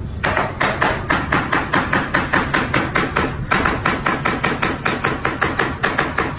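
Knife rapidly chopping a head of broccoli on a cutting board, about five sharp chops a second, with a short break a little over three seconds in.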